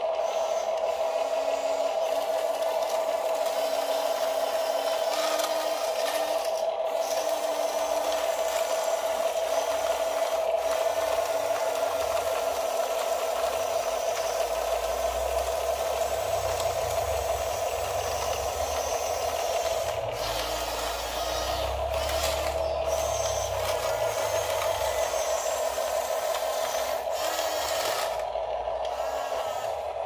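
Huina 1569 RC bulldozer's electric drive motors and plastic gearboxes whining steadily as it drives and turns on its tracks, with rattling and scraping. A lower rumble comes in for several seconds around the middle.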